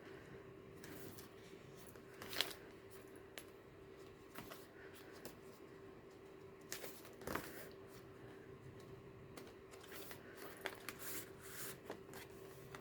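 Pages of a handmade paper junk journal being turned and handled: faint paper rustles and soft taps, with sharper ones about two and a half and seven seconds in. A faint steady hum runs underneath.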